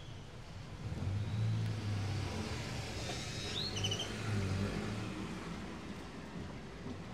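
A motor vehicle's engine passing by, louder for a few seconds in the middle, with a short high chirp about three and a half seconds in.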